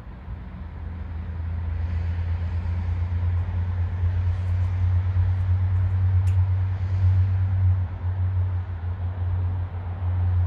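Low, steady engine rumble of passing heavy motor traffic that builds over the first two seconds and holds, easing slightly near the end, with a few faint clicks in the middle.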